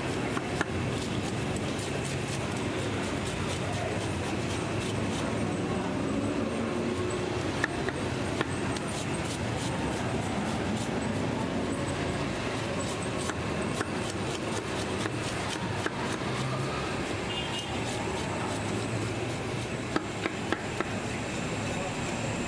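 Knife scraping the scales off a whole fish on a wooden chopping block: many small, quick scrapes and clicks, with a few sharper knocks near the end. Under it runs a steady din of street traffic and voices.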